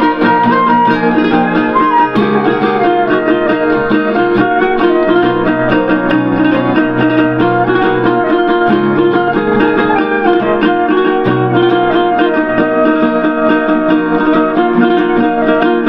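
Instrumental passage of a Bengali folk song: acoustic guitar and ukulele strumming steadily while a bamboo flute and a keyboard carry the melody, with held low notes underneath.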